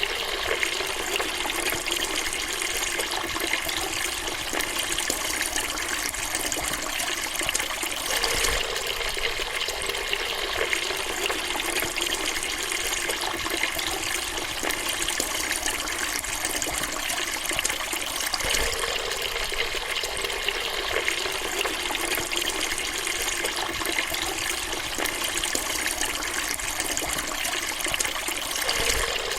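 Water running steadily from a faucet, an even rushing splash that swells slightly about every ten seconds.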